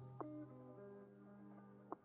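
Faint background music: a few plucked notes over soft held tones.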